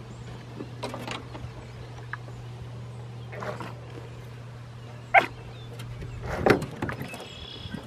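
Small dog whining and giving a few short yelps, the loudest about five and six and a half seconds in, over a steady low motor hum that stops about six seconds in.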